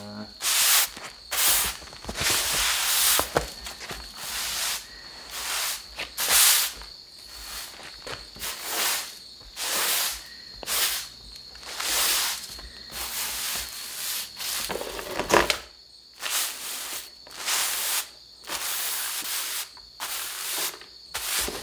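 Straw broom sweeping across a tatami mat: brushing strokes repeated about once a second or a little faster.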